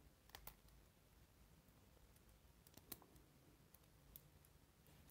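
Faint, scattered light metal clicks as the corrugated metal plate of a keyless drill chuck is fitted onto the chuck body by hand, with a cluster of clicks about three seconds in.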